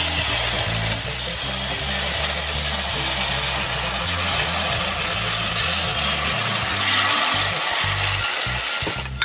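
Rice-flour and coconut-milk batter sizzling as it is poured into the hot cups of a kanom krok pan, an even hiss that cuts off just before the end. Background music with a low bass line plays underneath.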